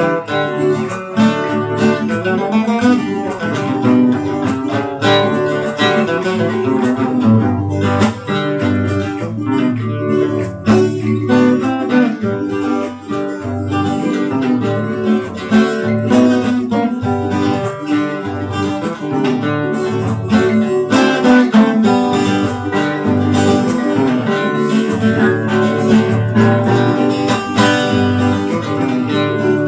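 Two acoustic guitars (violões) playing an instrumental tune together, with notes plucked in quick runs over a steady bass line.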